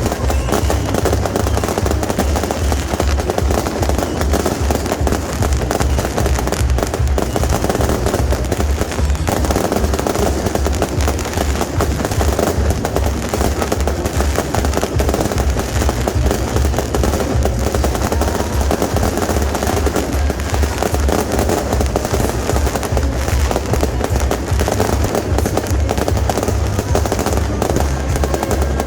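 Beehive fireworks (蜂炮) going off nonstop: racks of small rockets and firecrackers firing in a dense, rapid crackle of bangs, with music playing underneath.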